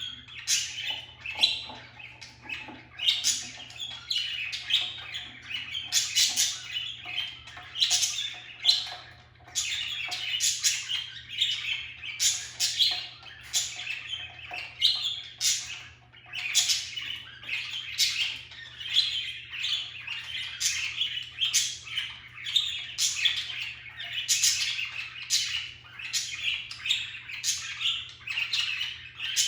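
Several pet budgerigars chirping and chattering without pause, with frequent short, sharp calls over a continuous warble.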